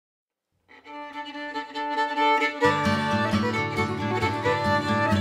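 Background music: silence, then a tune begins under a second in, and a fuller low bass accompaniment joins about halfway through.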